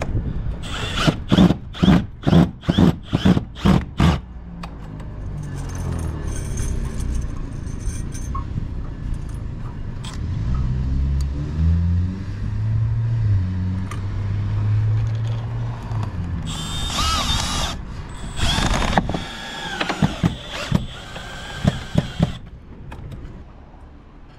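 Power drill driving long screws into a vinyl-sided wall: about seven short bursts in quick succession in the first few seconds, then a long stretch of the motor turning at a low, shifting speed, and more short bursts near the end.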